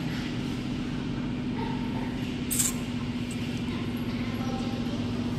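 Steady machine hum holding one constant low tone, with a short high hiss about two and a half seconds in.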